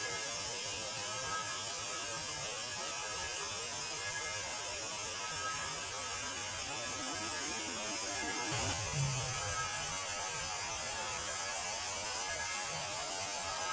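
Steady electrical humming and static hiss of a weather-radio antenna sound effect, with faint short whistling tones and a brief low thump about nine seconds in.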